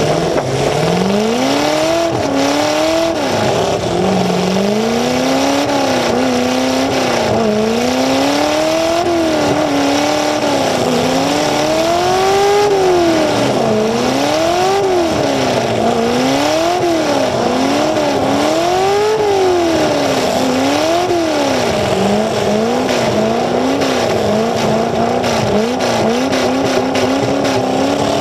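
Demolition derby car's engine, exhausting through open stacks straight up out of the hood, revving up and down over and over, its pitch climbing and dropping every second or two as the car accelerates, shifts and backs around the arena.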